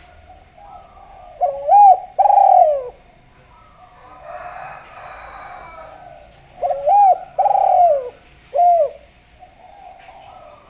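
Spotted dove (derkuku) cooing in two phrases a few seconds apart. Each phrase is a short rising-and-falling note followed by a longer falling coo, and the second phrase ends with an extra short note.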